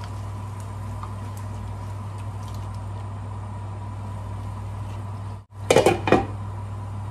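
A steady low hum under soft stirring of chicken and vegetables in a pan, then near the end a glass pan lid clatters down onto the pan with a quick run of knocks.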